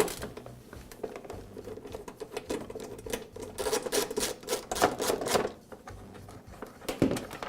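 Fasteners being undone and a plastic belt cover worked off a walk-behind lawn mower: irregular clicks and rattles, busiest in the middle, over a steady faint hum.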